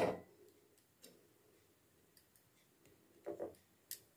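Tea being poured from a steel pan through a steel tea strainer into a cup, stopping a moment in. Then near quiet, with a few faint light clicks and knocks.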